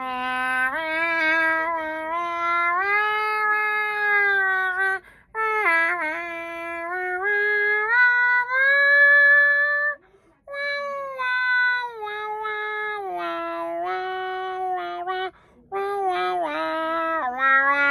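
A person's voice imitating a yowling cat: long, wavering pitched cries of about five seconds each, with short breaks between.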